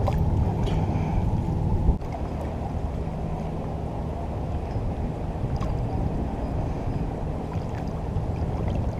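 Water sloshing and gurgling close to the microphone, a steady low churning noise. A short knock comes about two seconds in, after which it is a little quieter.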